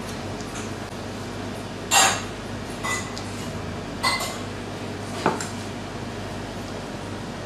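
Metal spoon and knife clinking against ceramic bowls as tortelli filling is scooped out and portioned, four sharp clinks, two of them ringing briefly. A steady low hum runs underneath.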